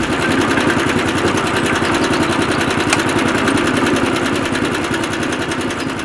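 Small DC motor of a handmade toy concrete mixer switched on and running steadily, turning the mixer drum with a fast, even buzzing rattle.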